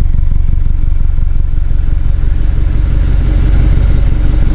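Modified BMW X6M's twin-turbo V8 idling steadily through an Eisenmann exhaust with Dinan mufflers, heard right at the quad tailpipes as a loud, low, even pulsing.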